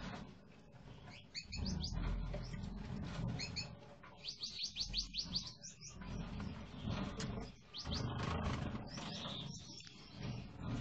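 Gouldian finches calling: short, high chirps scattered through, with a quick run of repeated notes about halfway through.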